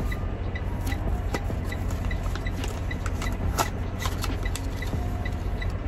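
A paper greeting card and its envelope rustle and crinkle as they are handled and opened, making scattered sharp crackles. Underneath is the steady low rumble of the vehicle and a faint high electronic beep repeating about twice a second.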